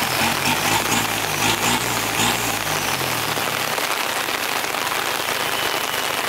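Steady rain falling on the ground and the vehicles. Under it, a truck engine runs low for the first few seconds, then fades out.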